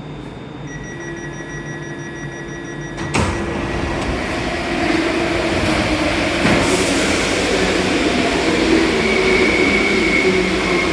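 Alstom MP14 rubber-tyred metro train running, its traction motors whining higher as it picks up speed. The train noise comes in suddenly about three seconds in, after a quieter stretch of faint steady tones.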